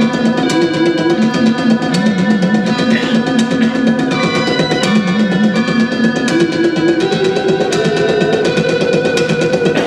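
Electric guitar playing live: a quick, wavering repeated riff with held notes ringing above it, over a steady drum beat.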